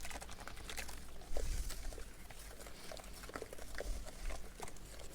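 Homemade Evapo-Rust mix of citric acid, washing powder and water fizzing in a plastic tray: a faint, irregular crackle of many tiny bubbles popping as the acid reacts with the washing powder.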